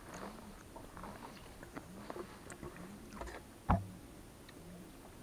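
Racing pigeons cooing softly, low arched calls about once a second, with scattered light clicks and one sharp knock a little before four seconds in.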